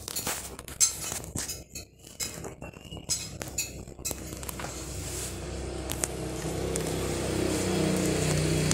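Dishes and cutlery clinking and knocking in a quick run of sharp hits, giving way after about four seconds to a steady sound that grows louder.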